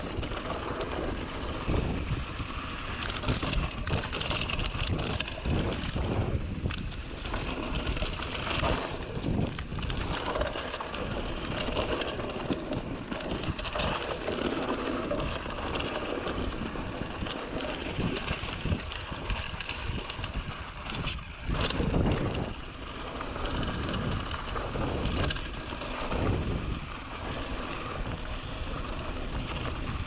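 Polygon Siskiu D5 mountain bike riding down a dirt trail: tyres rumbling over the ground with irregular rattles and knocks from the bike, and wind on the camera's microphone.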